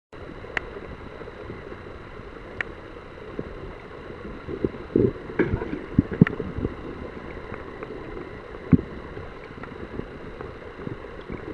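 Underwater noise picked up by a submerged camera: a steady low rush of moving water. A few sharp clicks are scattered through it, with a run of low knocks against the camera about halfway through and another single knock later on.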